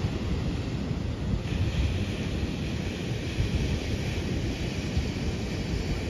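Ocean surf breaking and washing on the shore, mixed with wind buffeting the microphone as a gusty low rumble. The hiss of the surf swells about a second and a half in.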